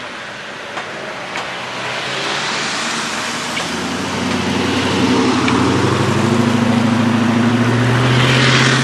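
Keihan Main Line electric train passing close by a level crossing: the rush of wheels on rail swells steadily, joined about halfway through by a rising motor hum that grows to the loudest point near the end, then cuts off suddenly.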